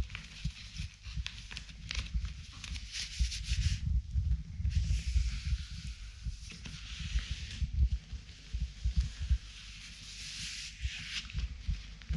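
Leather glove rubbing over a leather cowboy boot shaft and shiny leggings, in about three long strokes of a few seconds each, over a low rumble with dull thumps from the hand and leg movement.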